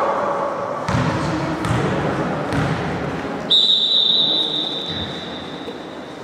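A referee's whistle gives one long, steady, high-pitched blast that starts suddenly about halfway through and slowly fades, over the low hubbub of the hall and a few dull thuds.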